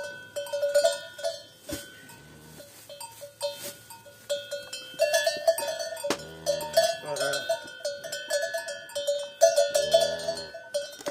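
A cowbell on one of the cows clanking irregularly as the cattle move about, with a few short, low moos from the cattle, at about two, six and ten seconds in.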